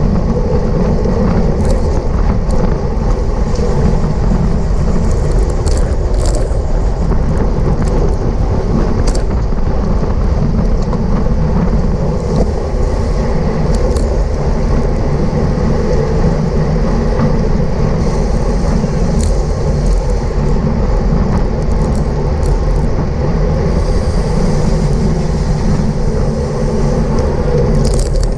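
Wind rushing over the microphone of a racing bicycle at speed: a loud, steady rush, with a few faint clicks scattered through it.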